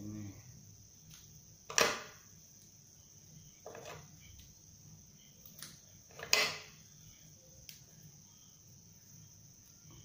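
Sharp clicks and knocks of scissors and small tools handled on a wooden workbench while cutting and tying string: two loud ones, about two seconds in and again past six seconds, with fainter taps between. A steady high-pitched drone runs underneath.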